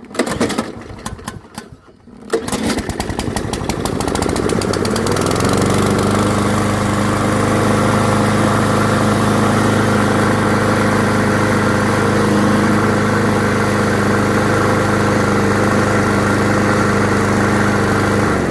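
YardMax 170 cc walk-behind lawnmower engine being pull-started: a couple of seconds of uneven bursts, then it catches, revs up over a few seconds and settles into a steady run. It is starting after a fuel line replacement, priming and a shot of starter fluid.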